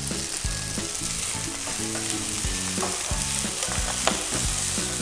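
Fried rice with corn sizzling in a nonstick deep frying pan over a gas flame, stirred and scraped with a silicone spatula about once a second.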